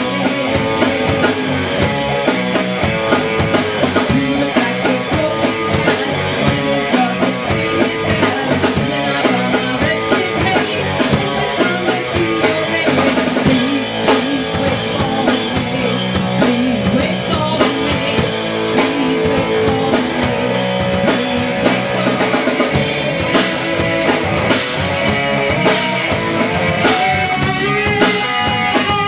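Live rock band playing: a full drum kit with bass drum and rimshots keeps a steady beat under electric guitar.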